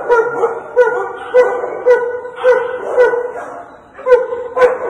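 Dogs barking repeatedly in a shelter's dog kennel, about a bark every half second, with a short lull about four seconds in before the barking starts again.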